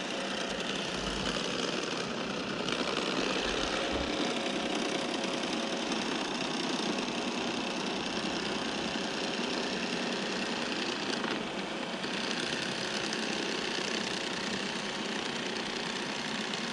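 Lidar-topped robot vacuum cleaner running, its fan and brushes making a steady, even whir as it drives around and backs onto its charging dock.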